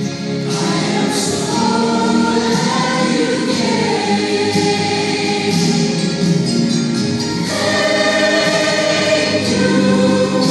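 Small mixed church choir of men and women singing together in long held notes.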